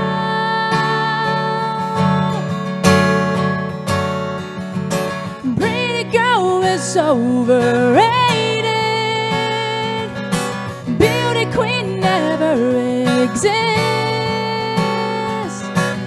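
Live acoustic guitar strummed steadily while a woman sings along; from about five seconds in her voice slides and bends between notes.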